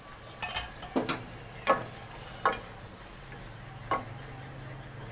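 Wooden spatula stirring chicken curry in an aluminium pot, knocking against the pot's side several times, over faint sizzling of the masala cooking.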